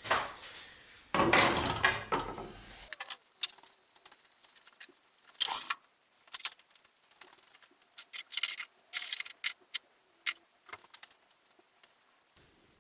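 Handling noises of a wood glue-up: scraping and rustling for the first few seconds, then scattered sharp clicks and light rattles as the workpieces, glue and clamps are handled.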